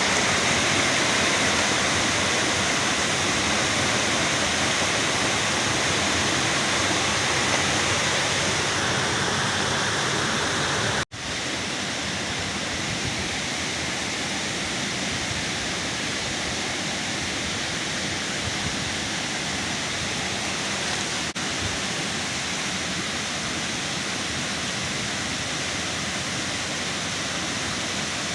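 Waterfall rushing steadily. About eleven seconds in it cuts off for an instant and resumes a little quieter.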